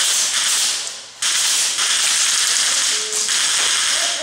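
Airsoft gun firing on full auto: two long, rattling bursts, the first stopping about a second in and the second starting a moment later and running about three seconds, each cutting on and off sharply.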